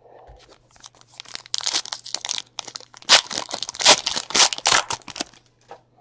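Plastic wrapping on a pack of baseball cards crinkling and tearing as it is ripped open, in a run of irregular rustles that is loudest in the middle.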